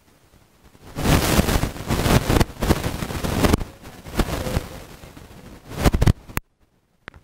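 Loud, distorted hand clapping with excited cheering from close to the microphone, starting about a second in and cutting off abruptly near the end.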